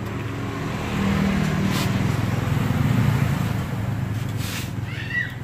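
An engine running steadily, swelling louder for a couple of seconds mid-way and then easing off; a bird chirps briefly near the end.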